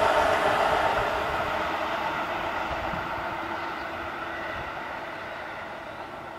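Seibu 2000-series electric train running away along the track, its wheel and running noise fading steadily into the distance.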